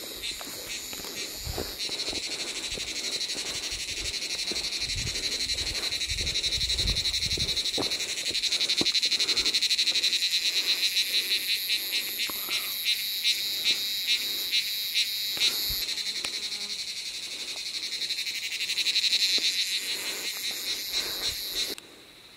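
Loud chorus of forest insects: a shrill, rapidly pulsing buzz that swells twice and cuts off suddenly near the end. Soft low thuds come through in the first few seconds.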